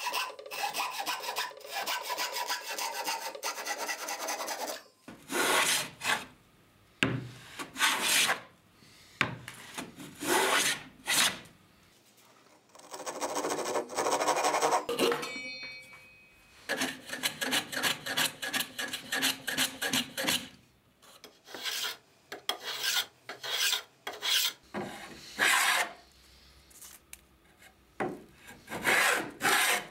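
A Japanese-style hand saw cutting a softwood board in repeated rasping strokes, rapid and close together at first, then slower and separate. Near the end come short hand-plane strokes chamfering the board's edge.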